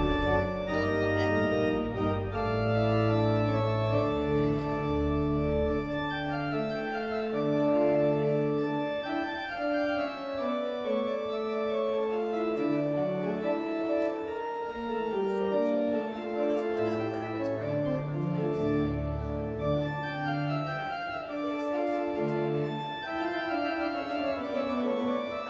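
Organ postlude after the benediction: sustained chords moving from one to the next, with deep pedal bass notes under them in the first few seconds and again about two-thirds of the way through.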